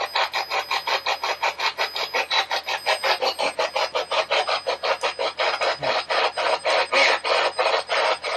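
SB-11 spirit box radio sweeping through stations, chopping the static into rapid, evenly spaced bursts several times a second.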